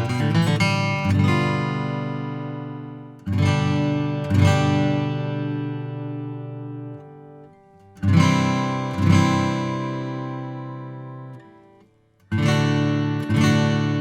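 Taylor 616CE acoustic guitar, with maple back and sides, strummed in slow open chords. The quicker strumming at the start rings out, then come three pairs of strums about a second apart, each pair left to ring and fade away.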